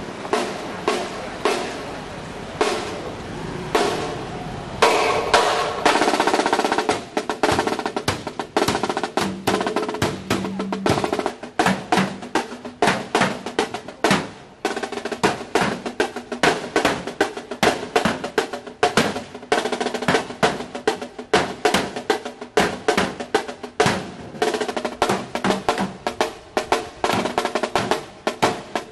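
Marching snare drum playing fast rolls and strokes, mixed with heavy knocks of a baseball bat striking a steel cabinet.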